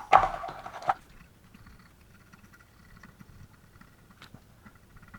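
Faint, irregular scratching and patter on a circuit board as it is scrubbed clean with isopropyl alcohol after desoldering.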